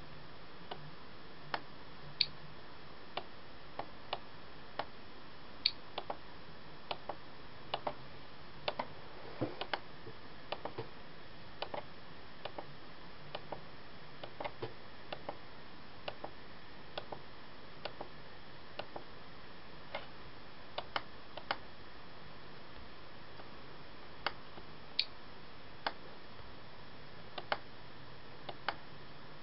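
Computer mouse clicking: single sharp clicks at irregular intervals, coming thick and fast for the first ten seconds or so, then sparser. A faint low hum and steady hiss lie underneath.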